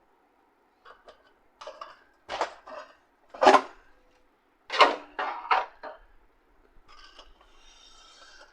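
Hard plastic parts of a laser printer's casing clattering and knocking as the printer is taken apart by hand: a run of sharp knocks two to six seconds in, the loudest twice, then a soft scraping near the end.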